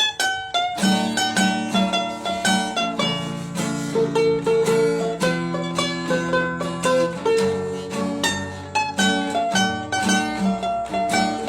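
Background music on plucked string instruments, quick picked notes played in a steady, lively rhythm.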